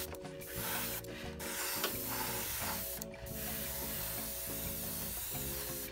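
Harder & Steenbeck Evolution airbrush spraying primer with a steady hiss, broken off briefly three times as the trigger is let go. Background music with held notes plays underneath.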